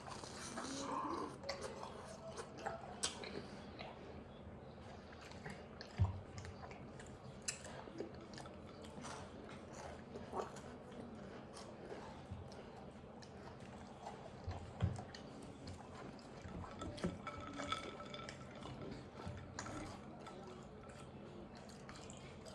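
Close-miked chewing of milk-soaked cookie: scattered wet smacks and small clicks, with a few louder soft knocks about six, fifteen and seventeen seconds in.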